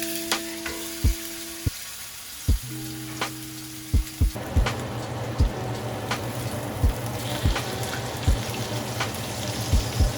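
Steak sizzling in a hot pan, the sizzle thickening and getting louder about four seconds in, under background music with a steady beat.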